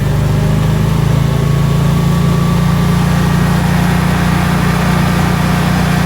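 Generac 16 kW propane-fuelled standby generator engine running steadily just after starting on a test run, still unloaded while it comes up to full power before the transfer switch takes the house's load.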